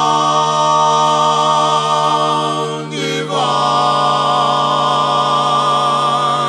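A cappella barbershop harmony: several voices hold a long chord on the word "song", slide into a new chord about three seconds in, and hold that one too.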